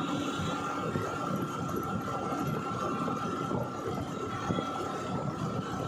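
Engine and tyre noise of a vehicle driving along a concrete road, a steady low rumble with a thin high whine held throughout.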